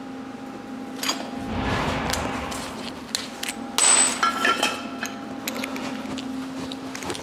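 Metal knocking and clanging on the steel body of a vintage Volkswagen bus, with the loudest ringing clangs about four seconds in, over a steady low hum.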